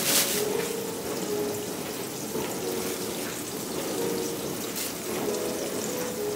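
Flour-coated salmon nuggets frying in hot oil: a steady sizzle.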